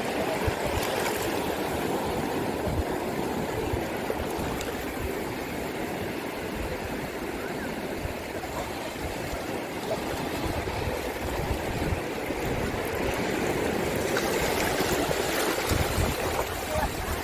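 Shallow seawater washing and lapping over sand at the water's edge, a steady rush of small waves.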